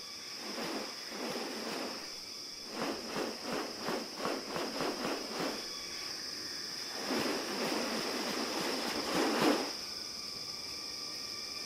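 Rainforest ambience: a steady high-pitched insect drone, with bursts of rustling over it. The rustling comes twice early on, then as a rhythmic run of about three pulses a second in the middle, then as a longer swell near the end.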